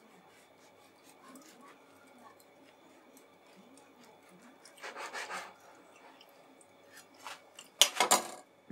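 Kitchen knife sawing through the crust of a stack of sandwich bread on a plastic cutting board: a rasping cut about five seconds in, then a louder scrape with sharp knocks near the end.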